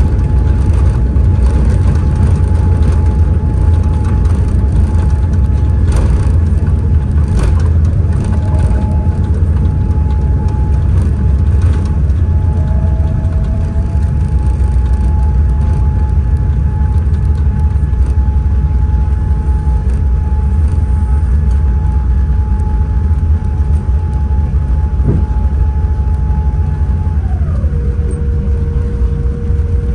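Boeing 787-9 heard from inside the cabin over the wing as it rolls out after landing, ground spoilers raised: a loud, steady low rumble from the landing gear and engines, with a steady whine that drops in pitch near the end and a few knocks about six to seven seconds in.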